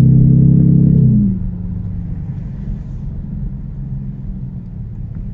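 3.6-litre V6 exhaust with cutouts open just after the catalytic converters, heard from inside the cabin while driving: a loud, deep, steady drone that drops off sharply about a second in to a lower, steady rumble as the throttle is eased.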